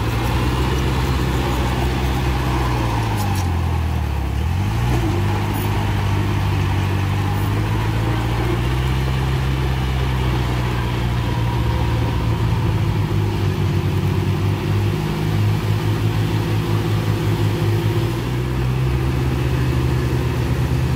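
Heavy diesel engine of earthmoving machinery running under load, its pitch dipping and recovering about four seconds in, then taking on a rapid pulsing beat for a few seconds in the second half.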